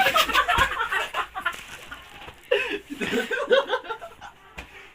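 People laughing in two bursts, quick repeated 'ha' sounds, the second burst fading out near the end.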